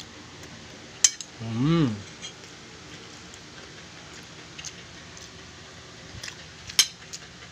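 Spoon and fork clinking and scraping against a glass plate while eating, as a few scattered sharp clicks, the loudest about a second in and near the end. About one and a half seconds in there is a short hummed "mm" that rises and falls in pitch.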